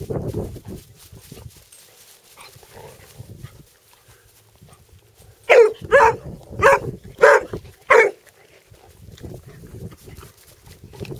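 Bluetick coonhound barking five times in quick succession, loud pitched calls about half a second apart.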